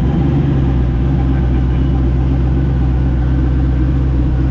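Mini jet boat's engine running steadily at low speed, an even, unchanging drone.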